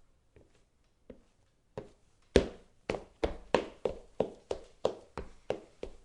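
Footsteps on a hardwood floor, a few soft steps at first, then from about two seconds in louder and quicker, about three steps a second.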